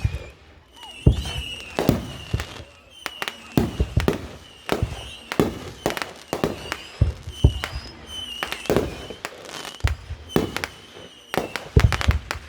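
Fireworks going off: an irregular string of sharp bangs and pops, several a second at times.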